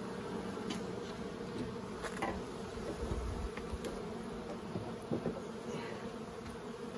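Honey bees buzzing around an open hive frame: a steady, even hum of many bees.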